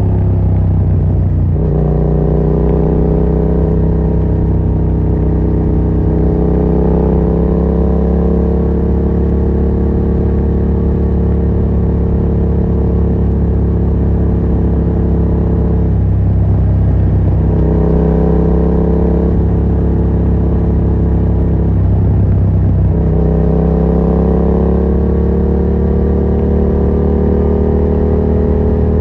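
Yamaha MT-07's 689 cc parallel-twin engine running through a Yoshimura R77 exhaust with the dB killer removed, under way at a steady speed. The engine note dips and picks up again a few times, near the start and then about midway and two-thirds of the way through, rising again after the last dip.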